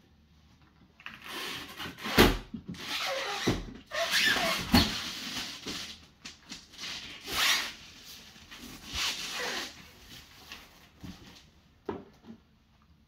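Large latched black flight case being handled and shifted by hand: a run of scraping and rubbing noises, with three sharp thumps a little over a second apart between about two and five seconds in.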